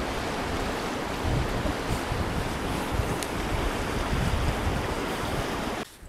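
Wind buffeting the microphone over the rush of water past a moving boat: a steady, gusty rushing noise that cuts off suddenly near the end.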